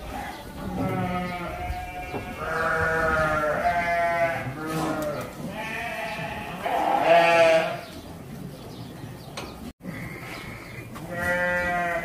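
A herd of goats bleating: several overlapping calls with a quavering pitch through the first eight seconds, then a quieter spell and one more bleat near the end.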